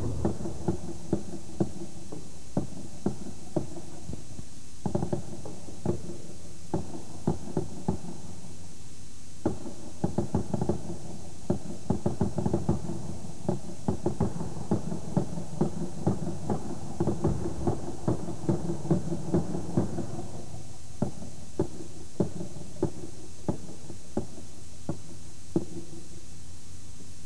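Drumsticks striking a drum in an uneven, unaccompanied beat. The hits are sparse at first, come in busy flurries through the middle, and thin out again near the end.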